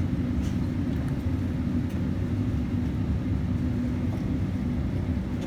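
Airliner cabin noise before departure: a steady low rumble with a constant hum, and a few faint clicks.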